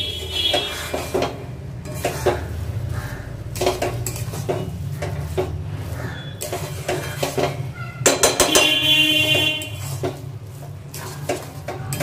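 Metal spatula scraping and knocking against a metal pan while stirring cooked rice to mix in spice powder, with a louder ringing clang of metal about eight seconds in. A low steady hum runs underneath.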